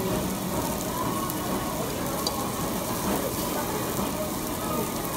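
Meat sizzling steadily on a barbecue grill, a dense crackling hiss, with faint voices underneath.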